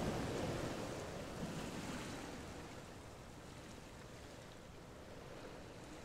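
Faint steady hiss of background noise that slowly fades, with no distinct clicks or knocks.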